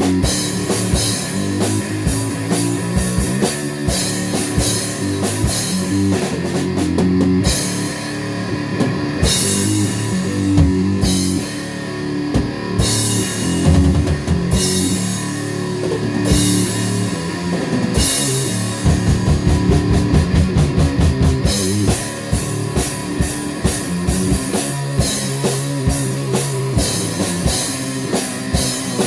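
Rock music with a full drum kit and guitar: steady drum beats, long cymbal crashes about every two seconds through the middle, and a fast run of drum strokes a little past the middle.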